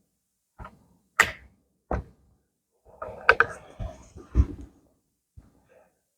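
A run of sharp clicks and knocks from handling a rifle and its gear at a shooting bench: three single clacks in the first two seconds, then a quick cluster of clattering knocks a little past the middle.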